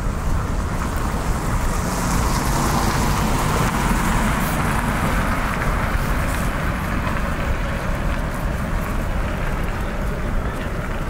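Street traffic noise with a low rumble throughout; a vehicle's noise swells and fades about two to six seconds in, as if it passes by.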